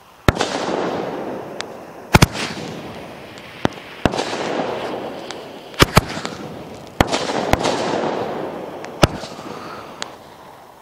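Homemade nine-shot 25 mm firework cake firing: a series of sharp bangs about every one to two seconds, several followed by a few seconds of fading hiss. Its shells are loaded with a lot of flash powder and scatter fine charcoal stars.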